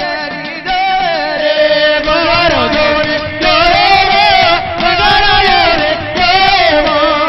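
Gujarati devotional folk singing (jagar) with instrumental accompaniment: a voice sings long, wavering, ornamented lines in a chanting style.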